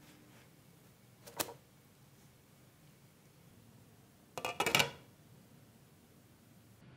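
A plastic spatula clicks once against the frying pan as the pancakes are flipped. Near the end, a glass pan lid with a metal rim clatters down onto the pan in a quick run of clinks, the loudest sound.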